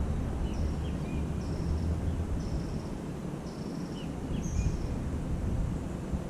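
Small birds calling: short sharp chirps and buzzy trilled notes, repeated about once a second, over a steady low rumble.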